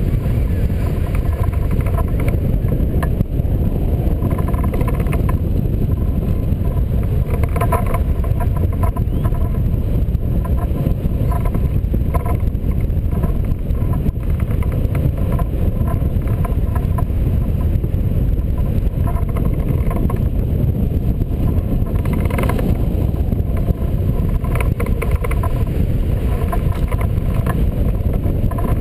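Steady loud rush of the airflow buffeting the wing-mounted camera's microphone on a hang glider in flight, with short flutters every few seconds.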